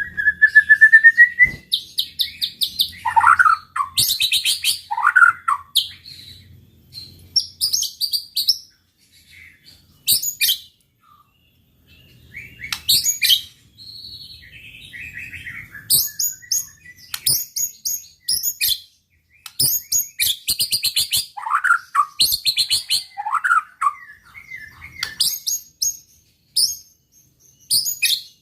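White-rumped shama (murai batu) singing a loud, varied song. Clear gliding whistles are mixed with rapid, high-pitched rattling trills, delivered in bursts with a pause of a few seconds about a third of the way through.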